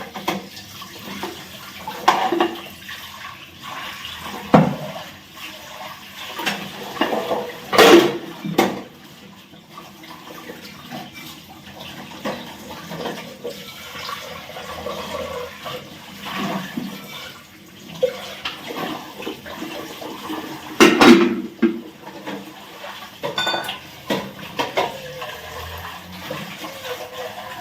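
Running water with clattering of dishes and pots, and several louder knocks, the loudest about eight seconds in and again about twenty-one seconds in.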